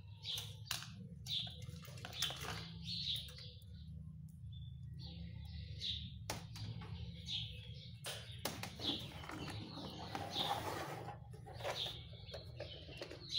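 Birds chirping in short repeated calls over a low steady hum, with a couple of sharp clicks from multimeter test leads being handled and swapped.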